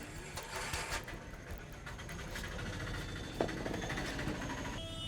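Head massage: fast, dense rubbing and tapping on hair and scalp, with a low traffic rumble behind it. A vehicle horn sounds near the end.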